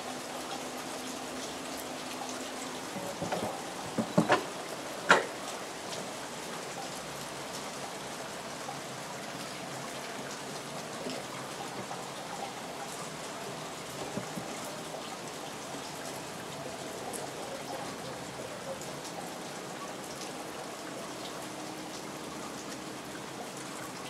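Steady rain falling on garden trees and foliage, an even hiss. A few seconds in, a brief cluster of sharp taps stands out, the last of them the loudest.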